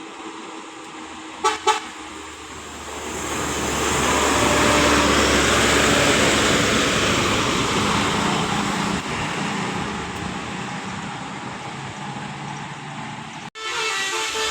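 A bus passes, its engine and tyre noise swelling over a few seconds and slowly fading, with two short sharp blips about a second and a half in. Near the end the sound breaks off abruptly and a Basuri telolet multi-tone bus horn starts playing a tune of changing notes.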